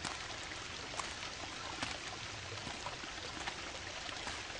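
Low, steady babble of flowing stream water, with a few faint ticks.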